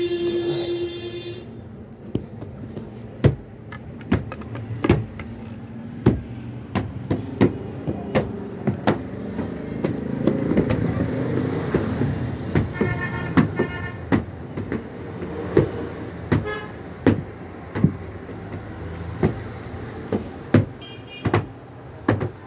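A stick beating a cotton-filled quilt: repeated sharp thwacks at an irregular pace, roughly one or two a second. A horn sounds briefly at the start.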